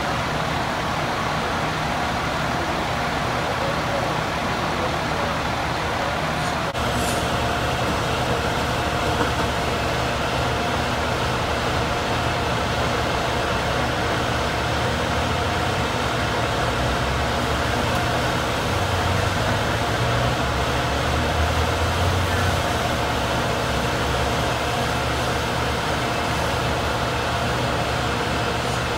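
Fire trucks' diesel engines running steadily at the fire ground, a constant mechanical drone.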